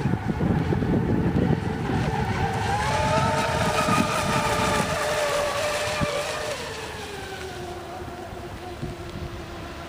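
Hor Racing Zonda RC boat's 2075 kV brushless motor whining at speed on 6S. The pitch rises about three seconds in, then falls and fades after about six and a half seconds. Wind rumbles on the microphone underneath.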